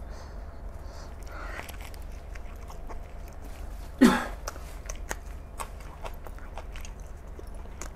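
Close-miked chewing and wet mouth sounds of a man eating bhakri with mutton gravy, with many small smacks and clicks. About four seconds in there is one short, loud mouth sound.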